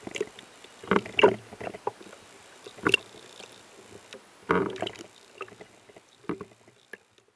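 Small sea waves splashing and sloshing against a camera held at the water surface, in irregular bursts with a faint wash between them; the sound cuts off just before the end.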